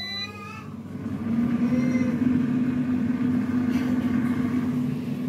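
Air fryer beeping briefly as it is set, then its fan starting about a second in and running with a steady hum.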